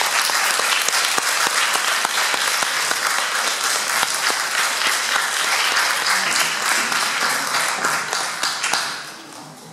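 Audience applauding, the clapping dying away about nine seconds in.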